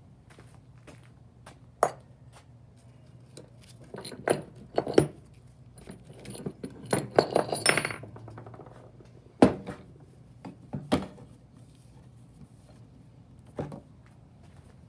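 Light metallic clinks and rattles of small engine parts being handled. There are a handful of separate sharp clicks, with a busier clatter about seven seconds in.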